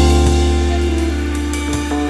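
Background music: a sustained bass and chord with drum and cymbal hits.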